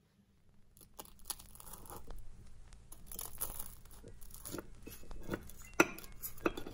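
Knife cutting through a toasted egg sandwich: crunching of the toasted bread crust, with a few sharper clicks in the second half.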